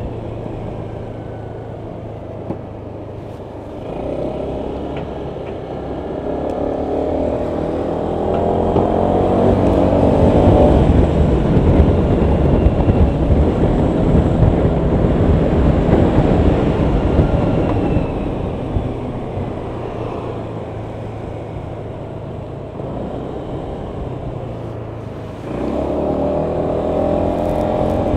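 Honda PCX 125 scooter's single-cylinder engine pulling away a few seconds in, with wind and road noise building as speed rises. It then eases off, and pulls away again with a sudden rise in engine note near the end.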